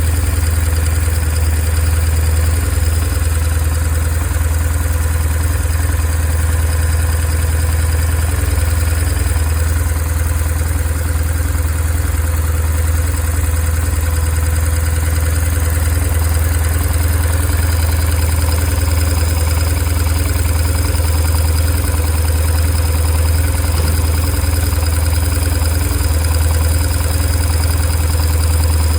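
2002 BMW R1150R's flat-twin boxer engine idling steadily with no revving. It is the sound its owner puts up as an engine issue.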